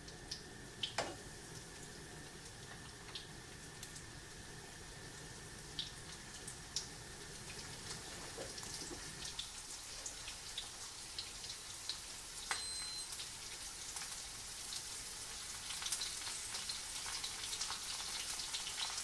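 Oysters coated in egg white and coarse semolina frying in hot corn oil in a pan: a sizzle with scattered crackles and pops that grow thicker and louder as more pieces go into the oil.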